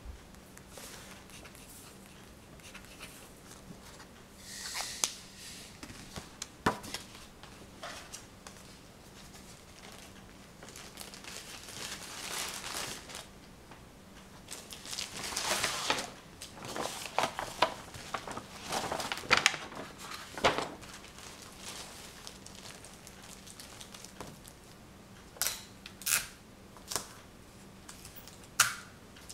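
Intermittent crinkling and rustling of something being handled, with scattered sharp clicks and taps, several of them close together near the end.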